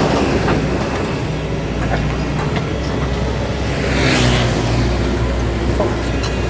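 Doosan DX225LCA excavator's diesel engine running steadily while it works, with scattered light knocks and a brief hissing rush about four seconds in.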